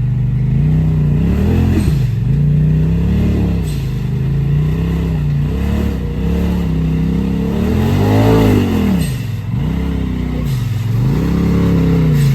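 Side-by-side UTV engine revving up and down in repeated throttle blips, its pitch rising and falling over and over, with the biggest rev about eight seconds in.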